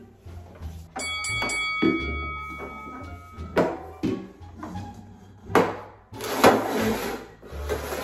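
Stainless steel mixing bowls being set down upside down and shifted on a tabletop: several knocks and scrapes, the first bringing a metallic ring that lasts about two and a half seconds. Background music plays underneath.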